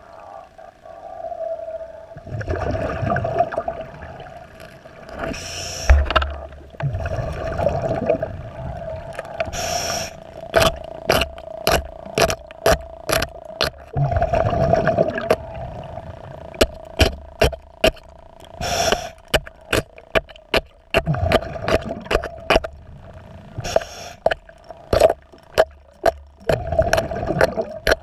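Underwater hull cleaning: a diver's exhaled breath bubbling out in low rumbling bursts every several seconds, with many sharp clicks and scrapes from working the fouled boat bottom. A steady hum runs underneath.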